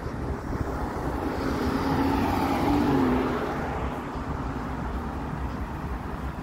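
A car drives past on the street, swelling to its loudest about two to three seconds in and then fading, over steady city traffic noise.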